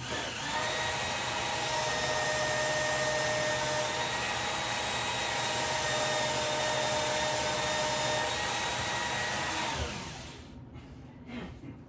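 A small motor-driven fan or blower running steadily, with a whirring hum over a rush of air. About ten seconds in it is switched off and winds down.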